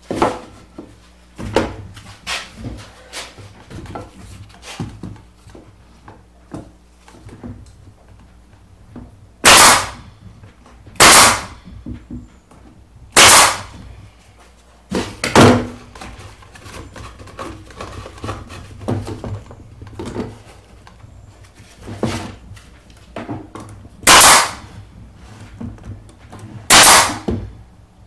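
Pneumatic nail gun firing nails into pine boards: six sharp shots, at about ten, eleven, thirteen, fifteen, twenty-four and twenty-seven seconds in. Between the shots come lighter knocks and clatter as the boards are handled and set in place.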